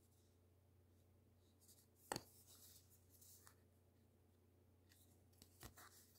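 A small folded paper zine being handled and turned over: faint paper rustles, with a sharp tap about two seconds in and another near the end as its cover is opened.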